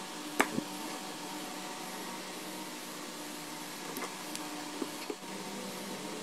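A few sharp clicks of small wooden blocks and a plastic quick-grip bar clamp being handled, over a steady background hum.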